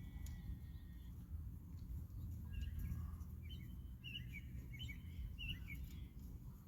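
Birds chirping in quick short calls through the middle of the stretch, over a steady low rumble of outdoor background noise.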